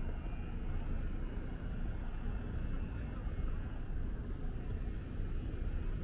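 City street traffic noise: a steady low rumble of cars.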